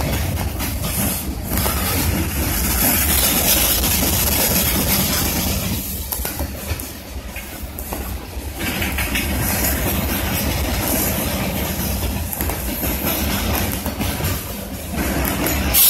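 BNSF freight train's container well cars and tank cars rolling past: a steady noise of steel wheels on rail, with occasional clacks.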